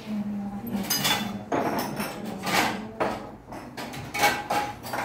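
Ceramic cups, saucers and glasses clinking and knocking as they are handled on and off a serving tray, about six separate clatters, some ringing briefly.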